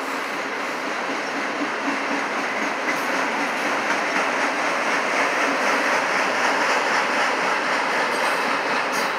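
Autorack freight cars rolling past, a steady noise of steel wheels on the rails that swells a little toward the middle.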